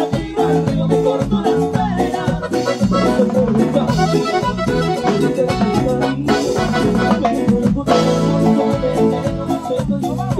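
Live Latin band music with an accordion carrying the lead over a steady bass and beat, played loud through a stage PA.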